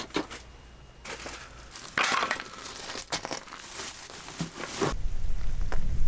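Irregular crunching and rustling, with a few light knocks, the loudest burst about two seconds in. From about five seconds in, a low rumble of wind buffeting the microphone takes over and grows louder.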